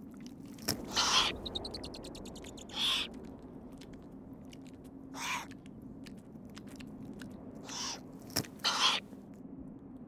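Eurasian eagle owl chicks giving short rasping, hiss-like begging calls, about five of them a second or two apart, as the mother feeds them, with a couple of sharp clicks between.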